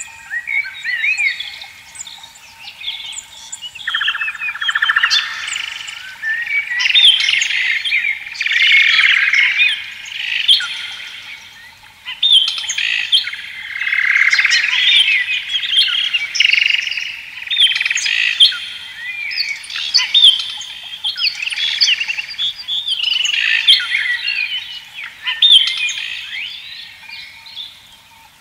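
A chorus of many small birds chirping and calling at once, the short calls overlapping and swelling and easing every few seconds, with a faint steady tone beneath.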